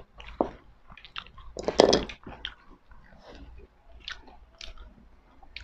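Close-miked mouth sounds of eating: chewing and crunching, with the loudest crunchy bites about two seconds in.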